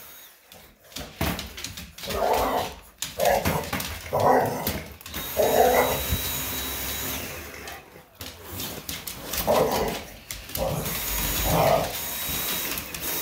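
English bulldog barking at a running cordless stick vacuum: about four short barks between two and six seconds in, then two more near the end. Under them the vacuum motor gives a steady high whine and hiss, strongest from about five seconds in.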